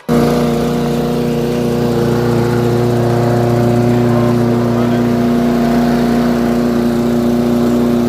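Lawnmower's small engine running at a steady speed, held evenly throughout, with a slight change in its low tone about five seconds in.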